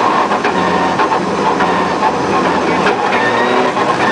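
Rally car heard from inside the cabin at speed on a snow-covered stage: the engine running under load with tyre and road noise, and scattered knocks and rattles from the body.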